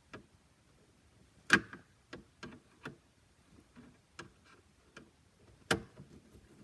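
Scattered clicks and taps of a screwdriver working out the screws in plastic dash trim, with two sharper knocks, about a second and a half in and near the end.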